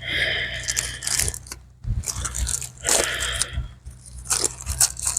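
Plastic packaging crinkling and rustling in irregular bursts as it is handled and unwrapped by hand, over a steady low hum.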